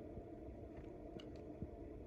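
Quiet room background with a low steady hum and a few faint, short clicks.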